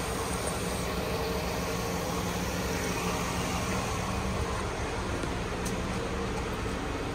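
2014 Dodge Avenger's 3.6-litre Pentastar V6 engine idling steadily.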